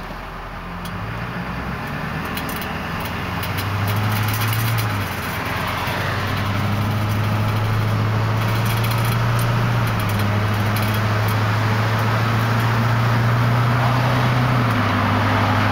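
Duramax 6.6-litre V8 turbo-diesel of a 2001 GMC 4x4 truck running. A low steady drone sets in about a second in, grows louder, and shifts in pitch a few times.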